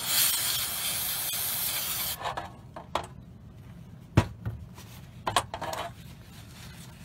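Aerosol brake cleaner sprayed through a straw nozzle onto a small metal motor frame, a steady hiss lasting about two seconds. Then a few clicks and knocks as the metal frame is handled in a metal pan, the loudest about four seconds in.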